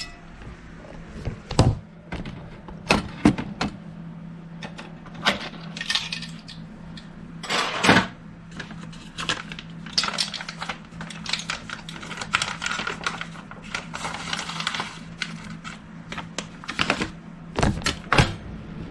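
Metal kitchen utensils clinking and tapping irregularly against a pan and containers, with brief scrapes, while a tablespoon of xanthan gum is measured out to thicken pan juices into gravy. A steady low hum runs underneath.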